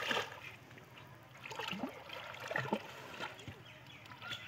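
Shallow floodwater splashing softly and trickling as bamboo cone fish traps are pushed down into it and people wade knee-deep, with a louder splash right at the start.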